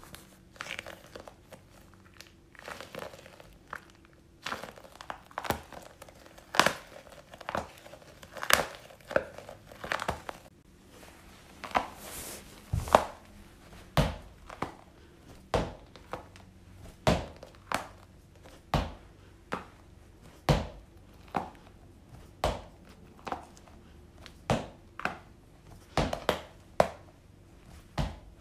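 Sticky squishy gel toy balls (Globbles) squelching and crackling as a clump of them is squeezed in the hand, then, from a little under halfway in, thrown one by one so each smacks against a wall, about one sharp slap a second.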